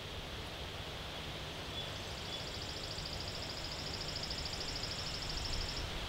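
Outdoor ambience of wind rustling through trees and grass, with a steady low rumble underneath. Two short high chirps come about two seconds in, then a high, fast trill that runs for nearly four seconds.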